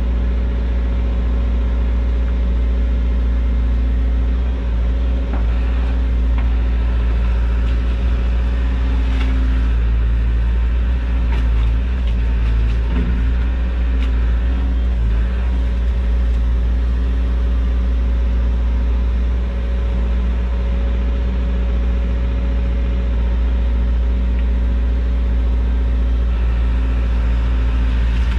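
Hyundai HX145 excavator's diesel engine running steadily under hydraulic working load, heard from inside the cab, with a few faint knocks partway through as the bucket works the mud.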